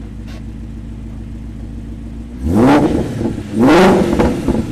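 Ford Shelby GT350's 5.2-litre flat-plane-crank V8, breathing through freshly fitted American Racing long-tube headers and a full exhaust, idling and then revved twice in quick succession, each rev rising and falling back to idle.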